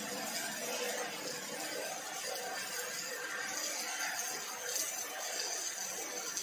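Two robotic MIG welding torches arc-welding a steel frame, giving a steady hiss at an even level.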